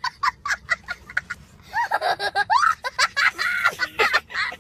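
A young child laughing hard: a quick run of short laughs, about five a second, then longer high-pitched laughing cries with rising and falling pitch.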